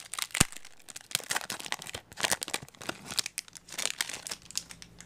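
Foil Yu-Gi-Oh booster pack wrapper crinkling and tearing open in the hands, with a sharp click about half a second in.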